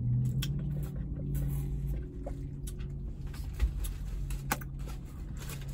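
Eating sounds: a sip through a straw, then chewing and the crinkle of a paper sandwich wrapper as scattered clicks and crackles, over a steady low hum.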